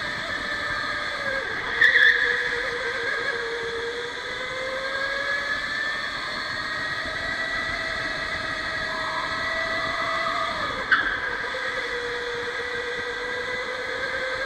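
Electric go-kart's motor whining, its pitch falling and rising again with the kart's speed, over a steady rushing noise. A short loud burst comes about two seconds in and a sharp knock about eleven seconds in.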